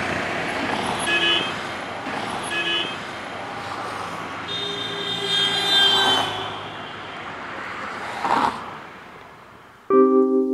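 Road traffic noise with car horns: two short honks about a second and a half apart, then a longer honk around the middle. The traffic fades, and keyboard music starts suddenly near the end.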